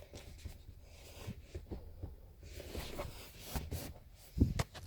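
Faint handling noises inside a car cabin: soft rustles and light knocks of hands on interior trim, with a sharper thump near the end.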